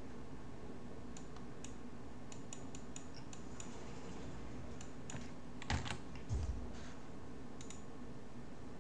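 Scattered computer keyboard keystrokes and mouse clicks as values are typed into a field, over a steady low hum, with two louder knocks about two-thirds of the way in.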